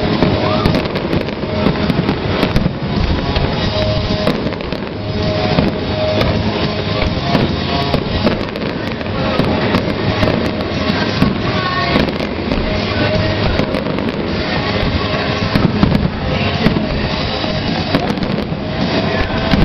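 Aerial fireworks shells bursting one after another, a continuous run of sharp bangs and crackles, with music playing underneath.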